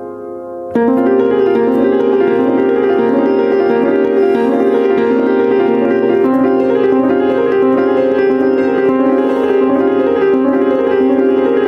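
Rippen upright piano playing: a held chord dies away, then about a second in a loud, quick repeating figure of broken chords in the middle register begins and runs on evenly.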